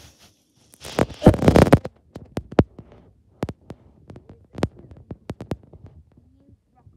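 Handling noise: a cluster of loud knocks and rustles about a second in, then scattered sharp clicks and taps, as plastic toy animal figures and the tablet filming them are moved about.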